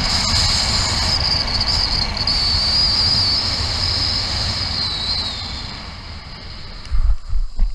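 Wind rushing hard over the onboard camera microphone as a Nervures Rafale 13 speed wing flies fast and low on full speed trim, with a wavering high whistle over the rush. About six seconds in the rush dies down as the wing slows, and near the end come several heavy thumps: the pilot's feet touching down and running in the grass.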